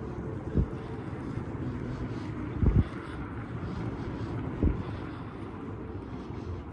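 Wind rumbling on the microphone, with three low thumps about two seconds apart. A faint distant air raid siren wails underneath.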